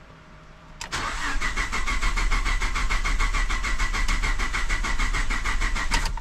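Starter motor cranking a Ford 3.5 EcoBoost twin-turbo V6 that does not fire, because its fuel pump fuse is pulled, to push oil through the freshly rebuilt engine. It kicks in about a second in and turns over in fast, even pulses for about five seconds, cranking a little weakly on a battery that is running down.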